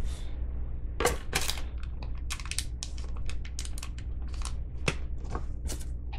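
Irregular run of small clicks and scrapes as a plastic cap is pried out of a new Nitecore MT21C flashlight by hand, with a steady low hum underneath.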